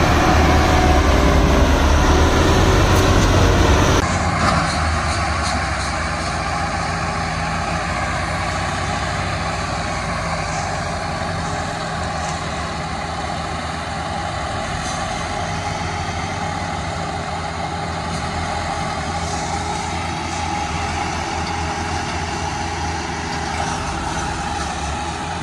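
Massey Ferguson tractors' diesel engines running hard under load, pulling a heavily loaded sugarcane trolley. The sound is louder for about the first four seconds, then drops suddenly to a steady drone.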